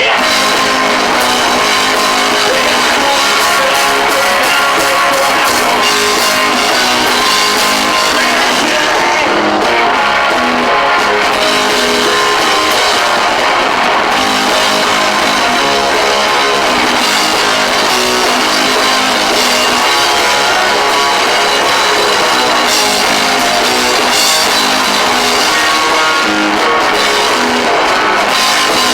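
Rock band playing: electric guitar and drum kit at a loud, even level.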